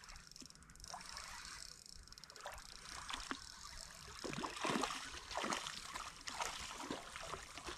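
Faint water sloshing and splashing, with a quick irregular run of short splashes through the second half.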